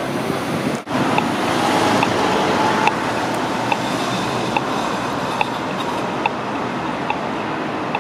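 Steady city street noise of passing cars and a light-rail tram rolling along its track, broken by a brief dip about a second in. A faint, regular short tick repeats a little more than once a second.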